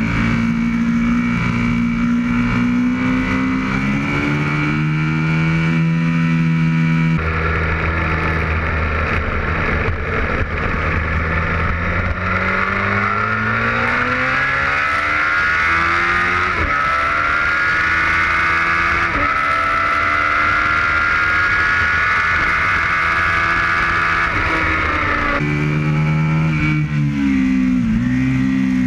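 Aprilia RSV Mille's 998 cc V-twin under hard acceleration on a race track, recorded onboard with wind rush: the revs climb in long rising sweeps, each upshift a quick drop in pitch. The character of the sound changes abruptly twice, about seven and twenty-five seconds in.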